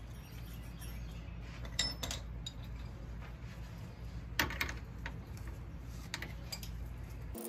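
A few light metallic clinks and taps as a tie rod end is handled and set back into the steering arm of a VW Beetle drop spindle, the clearest about four and a half seconds in. A steady low hum runs underneath.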